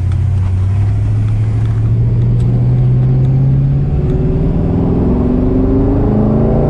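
1949 Chevrolet 3100 pickup's first-generation small-block Chevy V8 running steadily, then rising in pitch about four seconds in as the truck accelerates.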